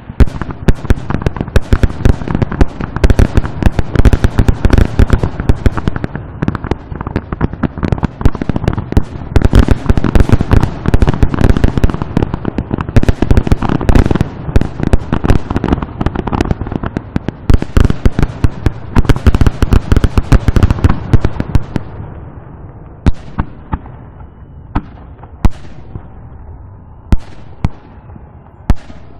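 Fireworks grand finale heard from about a kilometre away: a dense, nonstop barrage of shell bursts, bangs and crackle. About 22 seconds in it thins out to single loud bangs a second or two apart.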